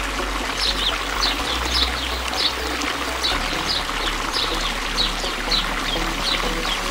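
Water running and splashing as an elephant wades through a river, with a bird calling over it: a short, high, falling note repeated about three times every two seconds.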